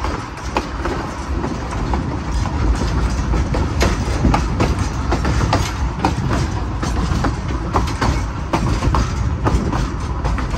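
Narrow-gauge passenger car rolling downgrade behind a steam locomotive: a steady rumble of the wheels on the rails, with irregular sharp clicks as the wheels cross rail joints.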